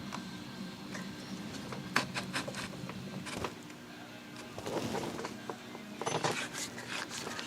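Tecomec Super Jolly chain grinder running with a steady hum, with short bursts of grinding and clicking as the wheel is brought down on the chainsaw chain's cutters, about two seconds in and again around five to six seconds in.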